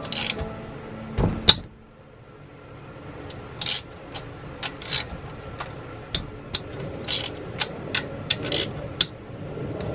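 Socket wrench working the cylinder-head bolts of an Onan CCKA twin-cylinder engine: irregular metallic clicks and clinks of the tool on the bolts, with a heavier knock about a second and a half in.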